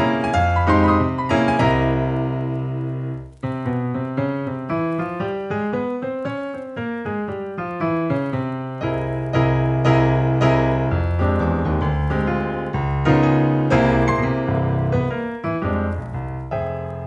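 Piano music: a quick run of notes climbs and falls in the middle, followed by fuller chords over held low bass notes.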